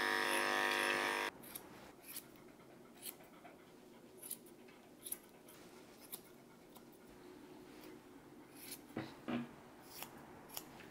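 Electric pet clippers buzzing, switched off about a second in; then grooming scissors snipping the dog's face hair, single short snips about a second apart, with a few quicker ones near the end.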